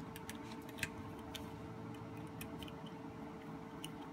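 Faint, scattered metallic ticks of a small Allen wrench turning the two screws of a red dot mounting plate on a pistol slide, gently tightening them. A steady faint hum lies underneath.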